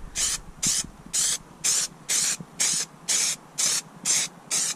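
Aerosol can of high-temperature spray adhesive spraying in short bursts, about two a second, coating a plywood panel.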